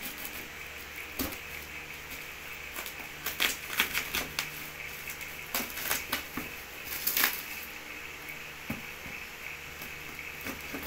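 Plastic parcel wrapping and bubble wrap crinkling and tearing as a parcel is cut open with scissors, in irregular bursts. Near the end, scissors scrape along packing tape on a cardboard box.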